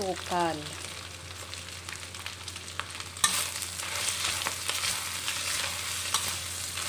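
Ground meat and mushrooms sizzling in a stainless steel wok. About three seconds in, a metal spoon starts stirring, scraping and clicking against the wok, and the frying grows louder.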